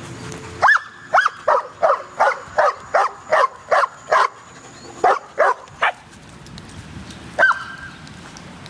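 A dog barking repeatedly: a quick run of about ten barks, two to three a second, then three more after a short pause and a single bark near the end.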